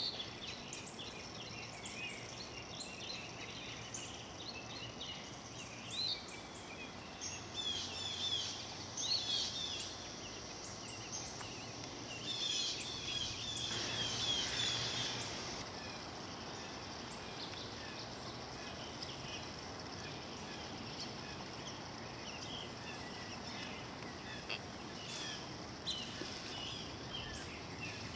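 Natural wetland ambience: birds chirping and calling over and over, busiest and loudest in the first half, over a faint steady low hum and a steady background hiss.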